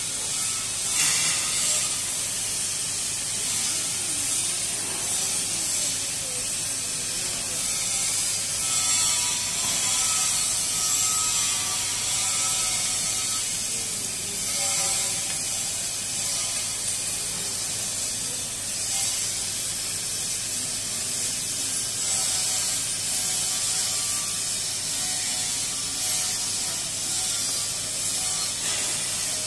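Steady din of workshop machinery in a pipe fabrication shop, with an even high hiss and no distinct strokes.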